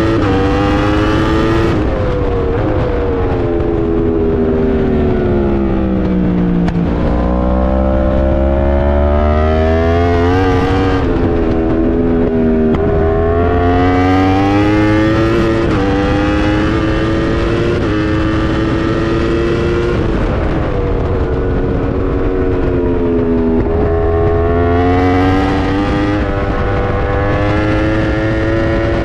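Yamaha R1 endurance superbike's crossplane inline-four engine at racing speed, heard from on board. Its pitch drops over several seconds as it is braked and downshifted about two seconds in, then climbs and steps repeatedly as it is driven out and upshifted. Wind rushes over the microphone at the fastest points.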